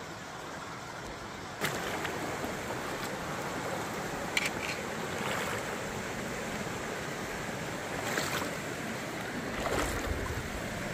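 Shallow, rocky creek rushing over stones in a steady wash of water noise that gets louder about a second and a half in, with a few brief knocks.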